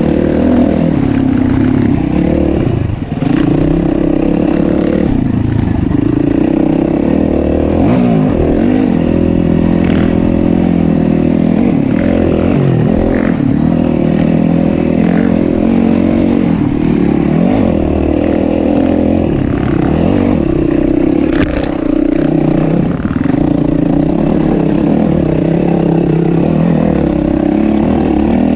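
Yamaha WR 450 F single-cylinder four-stroke enduro dirt bike engine being ridden hard, its revs rising and falling over and over as the throttle is opened and shut. Occasional clattering knocks from the bike over rough ground.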